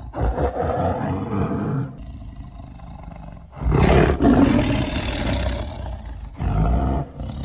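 Tiger roaring three times: a roar of about two seconds, a longer and louder one, then a short one.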